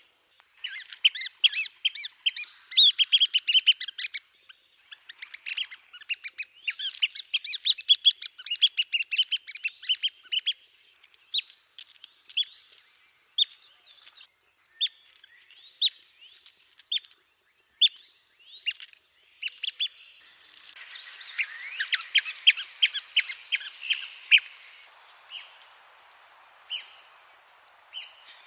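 Red-cockaded woodpecker calls: high-pitched, squeaky notes in fast chattering runs, interrupted by stretches of single notes about a second apart.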